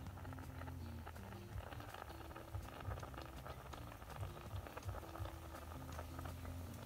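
Whole fish steaming in a split bamboo tube over glowing coals: a faint, steady mass of tiny crackles and bubbling, over a low rumble.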